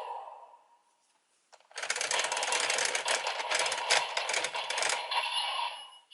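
Zenkai Buckle transformation belt toy: a brief click, then a rapid ratcheting clatter of many fast clicks lasting about three seconds, which fades out near the end. The toy's electronic sung audio dies away at the start.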